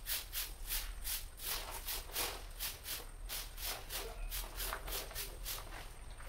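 Broom sweeping fallen leaves and grit across a gravel yard toward a dustpan: a run of scraping strokes, about two a second, growing fainter near the end.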